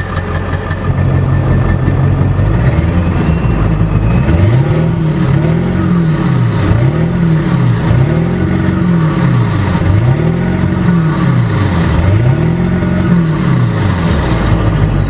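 Truck engine running, then revved up and back down over and over, about once every two seconds, the pitch swelling and falling with each rev.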